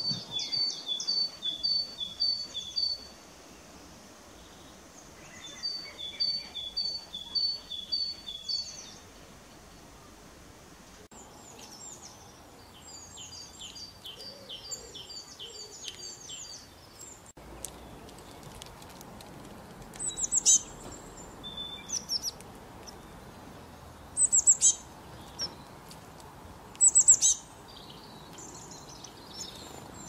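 Songbirds singing: twice in the first nine seconds a phrase of high, evenly spaced two-part notes repeated about five times, then a different run of chirping notes, and later three short, loud, high calls a few seconds apart, over a faint steady hiss.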